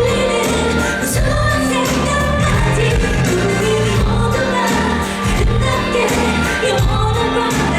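Live pop song: a woman singing lead over a backing band.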